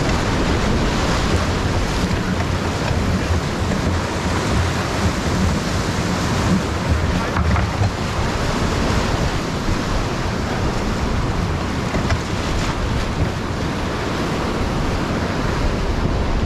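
Whitewater of a river rapid rushing steadily around an inflatable raft, with wind rumbling on the microphone.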